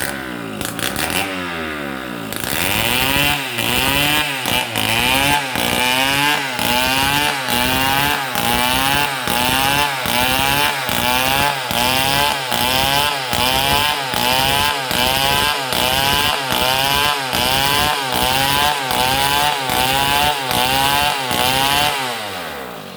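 Stihl MS 070 two-stroke chainsaw cutting, its engine running at high revs with the pitch rising and falling in a steady rhythm about one and a half times a second. The revs drop away in the first second or two and again near the end.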